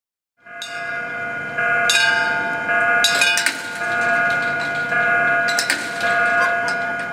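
Railway level-crossing warning bell ringing steadily, starting about half a second in, with a few sharp clicks over it.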